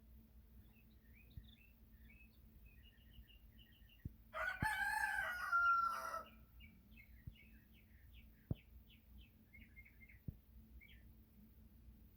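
A rooster crows once, for about two seconds, starting about four seconds in. Small birds chirp throughout, and there are a few faint clicks.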